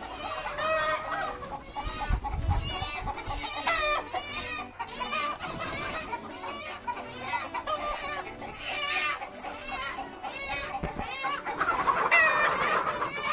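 A coop full of chickens clucking and squawking in a busy, overlapping chorus, stirred up while a bird is being caught by hand. There is a louder burst of calls near the end and a few dull thuds about two seconds in.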